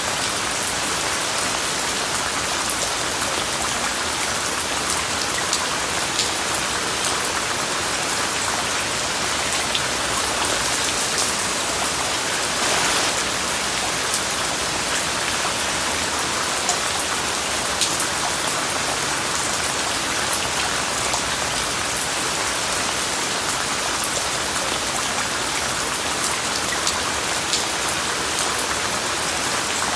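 Steady rain falling, an even hiss with scattered sharp drop ticks, briefly a little heavier about halfway through.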